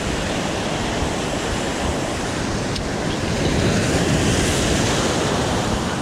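Ocean waves breaking and surf washing in a steady rush, swelling a little about halfway through, with wind on the microphone.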